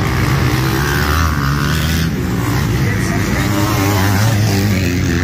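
Motocross dirt bikes racing on a dirt track, several engines heard at once, revving up and down in pitch.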